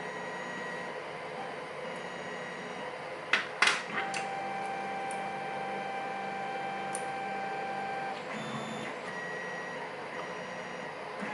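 A few sharp light clicks of small metal lock parts, the pins and springs of a gutted pin-tumbler lock, being worked with tweezers, the loudest a little under four seconds in. A steady faint hum lies underneath.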